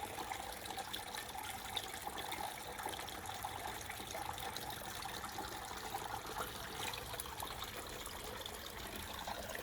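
Small pump-fed backyard waterfall, water trickling steadily down short drops into a pond.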